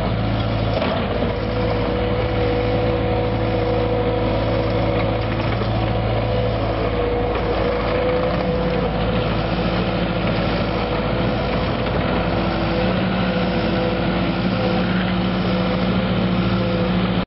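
Takeuchi TL8 compact track loader's diesel engine running at a steady, even pitch as the machine works across bare dirt with its bucket.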